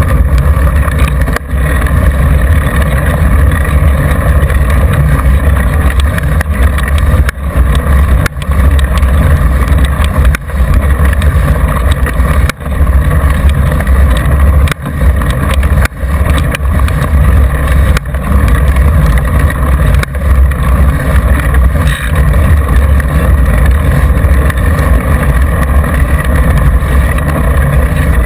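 Steady, loud rushing of wind on the mic of a camera mounted on a mountain bike's front fork, with the knobby front tyre rolling on asphalt during a downhill ride. A few brief knocks break through as the bike jolts over bumps.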